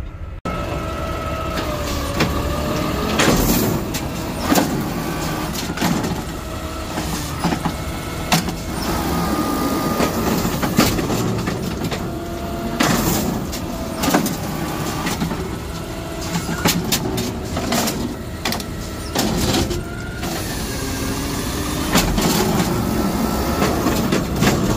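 Automated side-loader arm and grabber clamp on a garbage truck, cycling on hydraulics while the diesel runs with the PTO engaged. A hydraulic whine shifts up and down in pitch over the engine noise, broken by repeated clanks and knocks as the arm moves, in a test of the arm and clamp.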